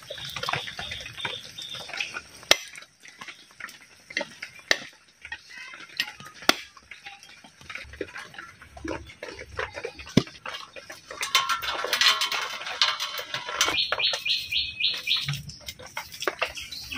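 Scattered knocks and clinks of kitchen utensils and pots, with birds chirping: a short trill at the start and a quick run of high chirps about fourteen seconds in.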